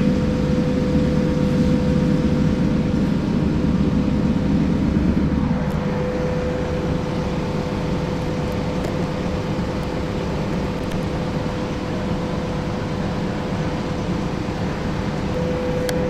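Detroit Diesel Series 50 engine of a 1994 TMC RTS transit bus running hard under load, with a steady whine over it. About five and a half seconds in, the deep engine note drops away and the bus runs on more quietly.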